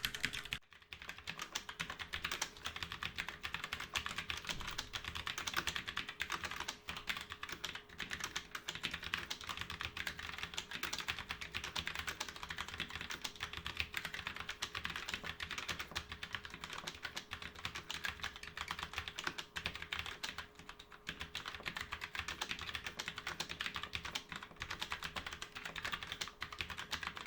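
Rapid continuous typing on a mechanical keyboard with Kailh Brown tactile switches under low-profile double-injection keycaps: a dense run of quiet key clicks and clacks without pause. The switches are really quiet.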